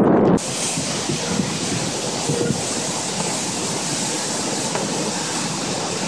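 Hurricane rain and wind making a steady, even hiss. Low wind buffeting on the microphone cuts off abruptly about half a second in.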